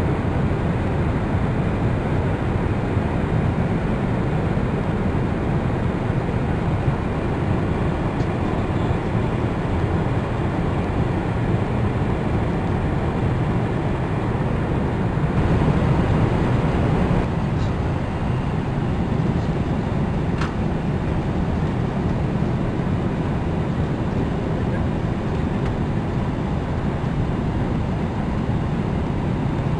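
Cabin noise inside a Boeing 777 airliner in flight: a steady, deep rushing of engine and airflow noise, swelling slightly about halfway through.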